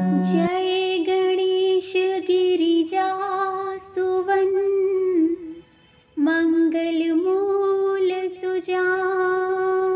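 A woman singing a slow Hindi devotional hymn to Shiva in long, held, ornamented phrases, with a short pause about six seconds in. A low sustained instrumental note from the introduction stops just after the start.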